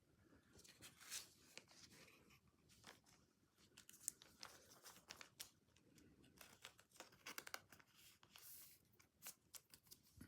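Faint crinkling and tearing of thin trading-card packaging handled close to the microphone, as a sequence of irregular crackles and short rustles.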